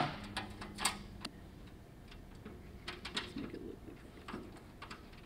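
Scattered small metallic clicks and taps as stainless bolts, nuts and a hand driver are worked against a door's backing plate and sheet-metal skin. The loudest click comes right at the start, another about a second in, and a quick run of lighter clicks around three seconds in.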